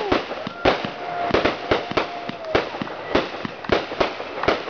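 Consumer fireworks going off: a quick, irregular string of sharp pops and crackles, several a second. About a second in, a thin whistle sounds for about two seconds, then stops.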